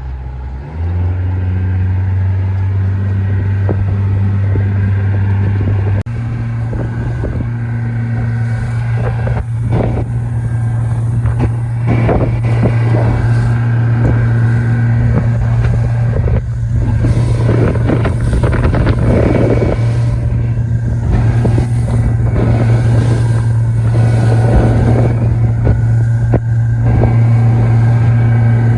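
Motorboat engine running underway, throttled up about a second in and again about six seconds in to a steady higher-pitched drone, with wind buffeting the microphone as the boat picks up speed.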